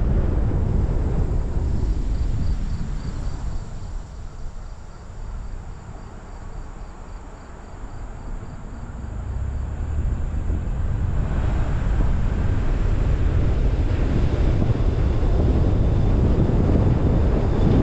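Wind buffeting the microphone of a car-roof-mounted GoPro Hero10, with tyre and road noise from the moving car. The noise dies down from about three seconds in as the car slows at an intersection and builds back up after about ten seconds as it picks up speed; a faint quick ticking is heard while it is slow.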